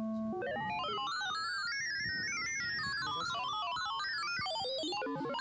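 Computer-synthesized tones from AudioLazy, a pure-Python real-time audio synthesis package: a held tone stops about a third of a second in and a fast run of short stepped notes follows, climbing and falling in broad sweeps.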